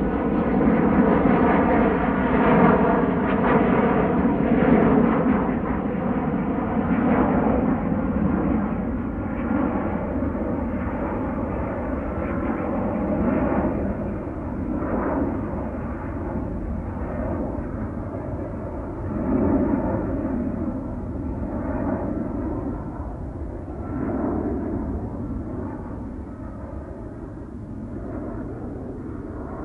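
Distant rumble of a jet airliner at cruising altitude, slowly fading and losing its higher tones as it moves away.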